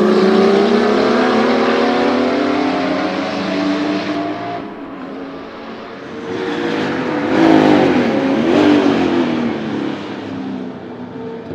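Twin-turbo flat-six of a 1979 Porsche 935 Kremer K3 race car accelerating hard, its pitch climbing steadily for about four seconds before a sudden lift off the throttle. The car then comes by on the power, loudest just past the middle, and fades as it moves away.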